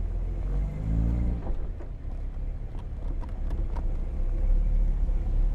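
1951 Jaguar XK-120's 3.4-litre twin-cam straight-six exhaust at low speed. The revs rise briefly about a second in, then settle back to a low rumble, with a few faint clicks.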